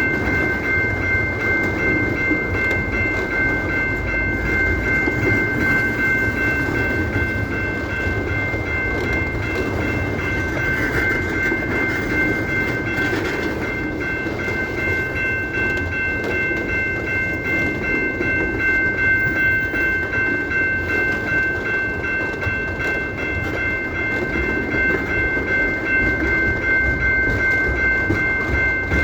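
Kansas City Southern train rolling past with a steady rumble and rail noise. A thin, steady high-pitched tone is held unchanged throughout.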